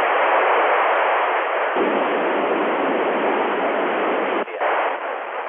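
Loud, steady FM radio hiss from a receiver tuned to the LAPAN satellite's FM repeater downlink, heard between transmissions, with a brief dip about four and a half seconds in.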